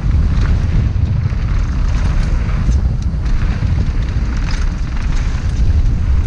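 Wind buffeting a helmet-mounted camera's microphone on a fast mountain-bike descent, a steady low rumble, with the tyres crunching over dirt and loose gravel and the bike rattling in scattered clicks.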